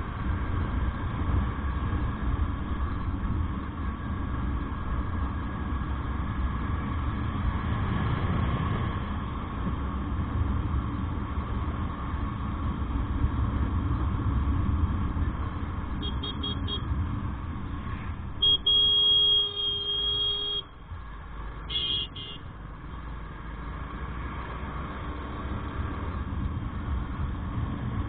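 Motorcycle running at cruising speed, with a steady low engine and road rumble. Past the middle a vehicle horn sounds: a few quick beeps, then a loud blast of about two seconds, then one more short honk.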